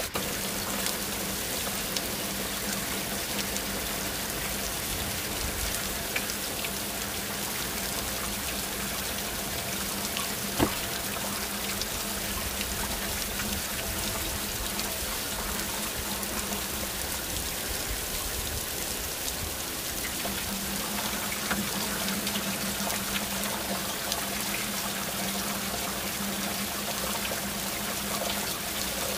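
Heavy rain falling steadily, an even hiss of downpour, with one sharp tick about ten seconds in.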